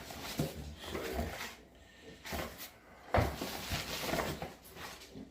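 Box and packaging being handled: irregular rustling and clatter, with one sharp knock about three seconds in.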